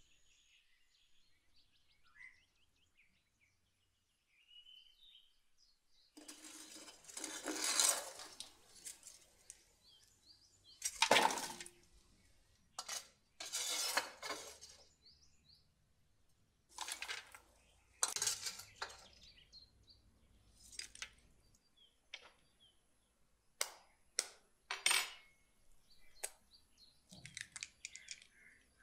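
A long-handled metal scoop scraping and scooping ash and embers off the floor of a clay wood-fired oven, in a series of scraping strokes each about a second long, then a few sharp metallic clinks. Near the end come faint clicks as an egg is cracked into a wooden bowl.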